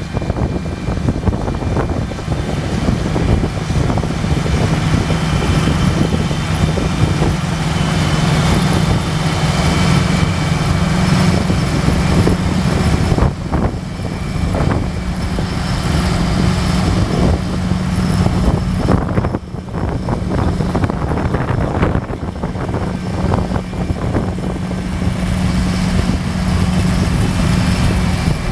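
A John Deere 8430T track tractor's six-cylinder diesel running steadily under load as it pulls a potato harvester, with irregular clattering from the machinery.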